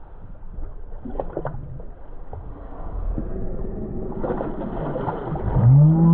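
Water splashing as a striped bass is held at the surface and kicks free beside the boat, the splashing loudest from about four seconds in. Near the end a loud pitched hum sweeps upward, then slowly falls.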